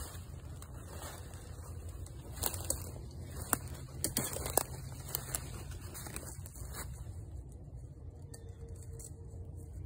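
Footsteps crunching through dry leaf litter, with a few sharp crackles and snaps of dry twigs about halfway through, over a steady low rumble.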